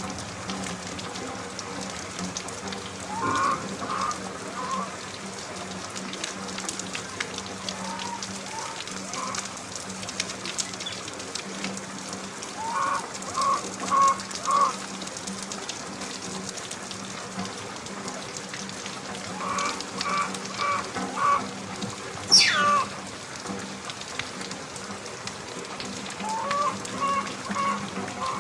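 Steady rain falling on surfaces, with short runs of four or five animal calls every several seconds and one sharp falling squeal about 22 seconds in.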